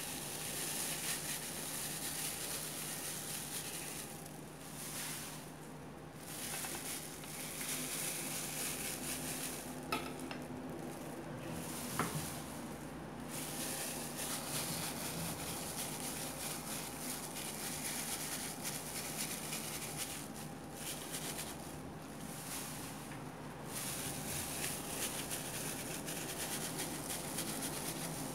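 A plastic-gloved hand crumbling and spreading grated boiled potato into a ceramic baking dish: a steady rustle of glove and food with a few short pauses, and two light knocks against the dish about ten and twelve seconds in.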